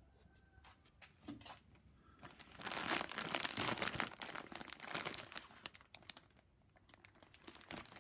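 Clear plastic packaging bag crinkling as a fleece cat bed is pulled out of it: a few light crackles, then dense crinkling for about three seconds starting a couple of seconds in, easing off into scattered crackles.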